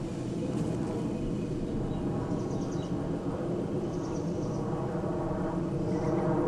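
Steady low outdoor background noise with short high bird calls about two, four and six seconds in.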